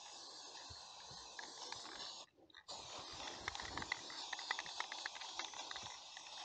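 Aerosol spray-paint can hissing quietly as paint is sprayed onto a steel tractor fuel tank. The hiss breaks off briefly a little over two seconds in, and a run of faint quick clicks follows in the middle.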